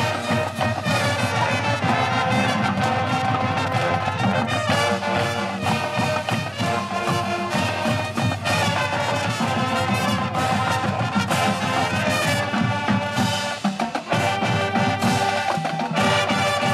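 High school marching band playing live: brass section (trumpets and trombones) carrying sustained chords over a drum line.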